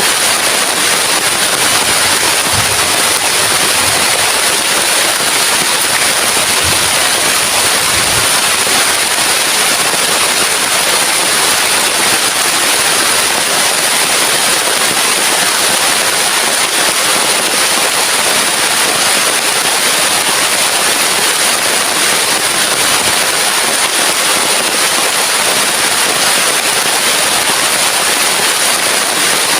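Heavy rain falling steadily as a loud, unbroken hiss, with a few soft low thuds in the first eight seconds.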